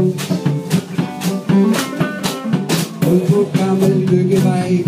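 Live band music: an acoustic guitar played to a steady beat, with electric guitar and drums.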